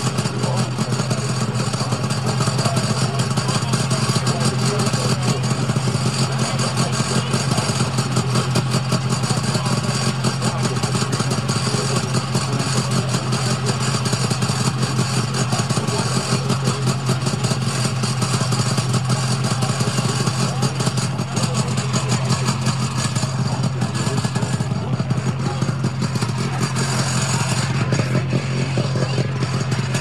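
Snowmobile engine idling steadily: a low, even drone with a fast pulse.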